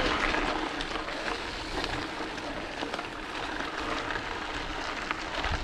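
Mountain bike tyres rolling fast over a loose gravel road: a steady crunching hiss with small stones ticking.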